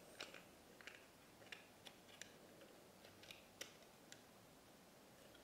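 Faint, irregular small plastic clicks and taps from a Polly Pocket compact toy being handled and worked open.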